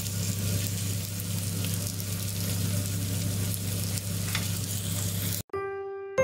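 Salmon fillets sizzling steadily in a frying pan, with a wire whisk stirring béchamel sauce in a saucepan beside it. About five and a half seconds in the sizzle cuts off and music with bell-like tones begins.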